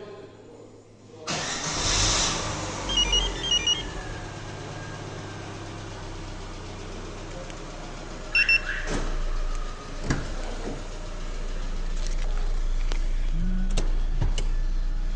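Car engine starting about a second in and then running steadily at idle, in a car just fitted with a StarLine A93 alarm with autostart. A quick series of short electronic beeps sounds soon after the start, with a pair more near the middle and a few sharp clicks later on.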